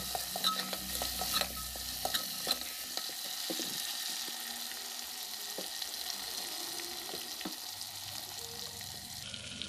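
Mutton pieces sizzling in hot oil in a pressure cooker, with a metal ladle scraping and knocking against the pot as it stirs during the first few seconds, then a steady sizzle.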